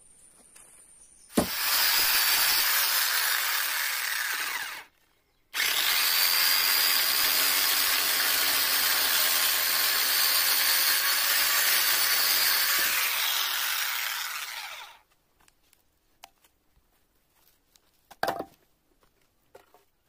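Corded electric chainsaw running and cutting through a log in two runs, a short one and then a longer one after a brief stop, cutting off about three-quarters of the way through. A brief knock follows near the end.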